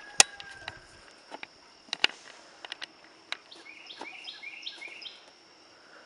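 Collie biting blackberries off a bramble bush: scattered sharp snaps and clicks, loudest near the start and again about two seconds in. Under them runs a steady high insect buzz, and a short run of repeated chirps comes about halfway through.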